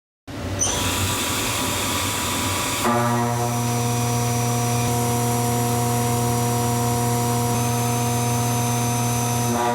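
Indexable end mill on a machining-center spindle. It spins with a high whine, then from about three seconds in it cuts metal with a steady pitched hum and overtones. The hum stays even until it stops near the end.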